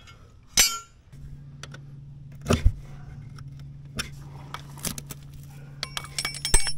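Scattered metal clinks and light knocks from a socket and extension being handled at a lawn-tractor mower deck's blade spindle, with a cluster of ringing clinks near the end. A steady low hum comes in about a second in and continues underneath.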